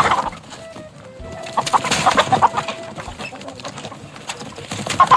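Chickens clucking over background music; the sound cuts off suddenly near the end.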